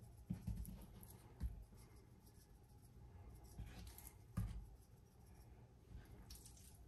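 Faint kitchen handling sounds while seasoning chicken with black pepper: a few light knocks and a brief scratchy rustle.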